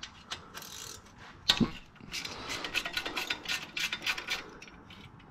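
Hand ratchet wrench clicking in quick runs as small bolts are worked loose from the transfer-case cage. There is a single sharp knock about one and a half seconds in.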